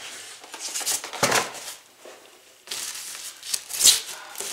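Large plastic bag crinkling and rustling as it is grabbed and pulled, in a few bursts, the loudest about four seconds in.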